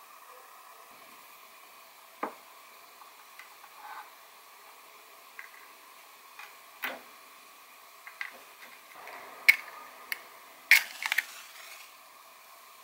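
Scattered light clicks and knocks of wooden tableware and a wooden incense box being handled, over a faint steady hiss. Near the end a match is struck and flares, a sharp scrape with a brief hiss that is the loudest sound.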